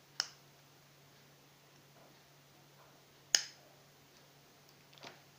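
Two sharp metallic clicks about three seconds apart, each with a short ring, then a fainter click near the end: small scissors snipping the excess lead wires of an electrolytic capacitor on a circuit board.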